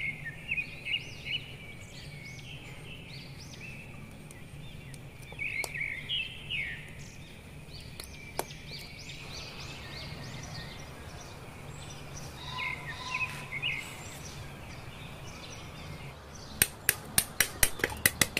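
Small birds chirping in short bursts, three times, over a steady low hum. A single sharp click comes about eight seconds in, and near the end a fast, even run of sharp clicks begins, about three a second.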